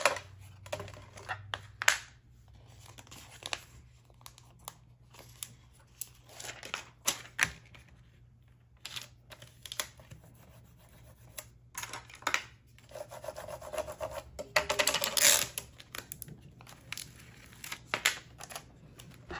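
Hands handling stencil film and grid-lined transfer tape, peeling and pressing the sheets. Scattered crinkles and clicks of plastic film and paper, with a longer rubbing rustle about fifteen seconds in.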